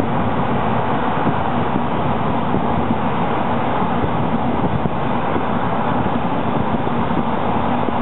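Steady mechanical rumble with a constant low hum, unchanging throughout.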